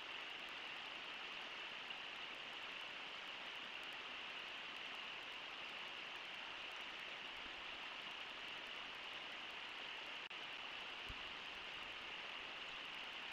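Steady rush of shallow river water flowing over rocks in a riffle, an even hiss.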